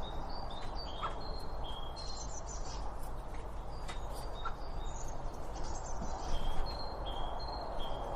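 Several small birds calling in short, high, clear chirps, many overlapping notes repeated throughout, over a steady background rush.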